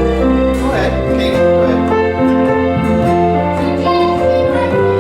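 Background music: an instrumental piece of held notes that change about every half second.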